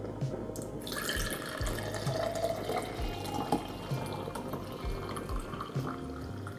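Water poured from a drip tray into a drinking glass, splashing and trickling steadily as the glass fills; the pouring starts about a second in.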